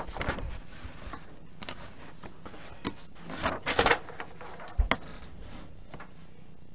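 Handling noise on a table: rustling and light knocks as papers and cardboard boxes of trading cards are moved, with a sharper knock about five seconds in.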